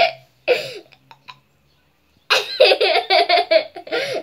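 A young child laughing: a short laugh about half a second in, then after a pause a long run of quick, pulsing giggles from about two seconds in.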